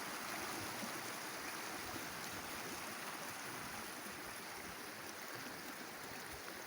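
Steady rush of running water, easing off slightly in loudness.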